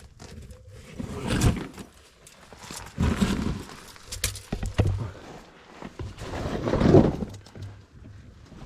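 Footsteps, scuffs and bumps of someone clambering over rough lava rock inside a lava-tube cave, coming irregularly, with a few louder bursts.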